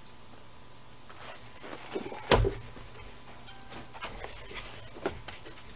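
Sheets of a scrapbook paper pad being lifted, turned and laid down by hand, with a few light taps and one louder thump a little over two seconds in.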